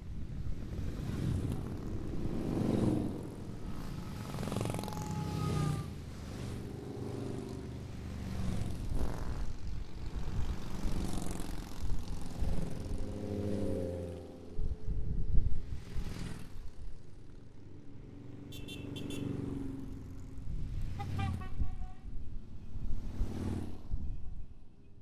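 A stream of cruiser and touring motorcycles riding past one after another, each engine swelling and fading as the bike goes by. The sound thins out near the end as the last bikes pass.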